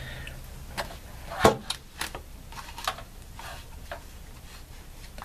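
Scattered small clicks and knocks from a Winchester Wildcat .22 rifle being handled during field stripping, a tool pressed against its takedown button; the sharpest knock comes about a second and a half in.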